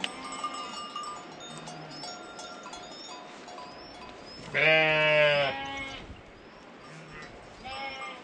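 A flock of sheep and goats calling. About halfway through, one animal gives a loud, wavering bleat lasting about a second. A shorter, fainter bleat comes near the end, and other faint calls from the flock carry on underneath.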